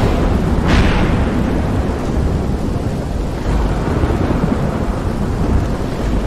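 Thunderstorm: a sharp thunder crack just under a second in, then a heavy rolling rumble of thunder with a steady hiss of rain, slowly easing off.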